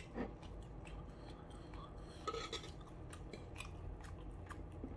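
A man chewing a mouthful of salmon, with faint scattered wet mouth clicks and small taps; one sound a little louder about two and a half seconds in.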